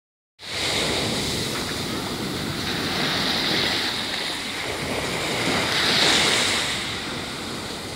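Small waves washing onto a sandy beach, with wind on the microphone; the wash swells louder about six seconds in.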